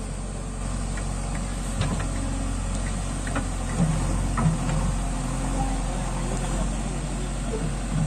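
JCB 3DX backhoe loader's diesel engine running steadily while the backhoe digs soil, with a few sharp knocks from the bucket and arm.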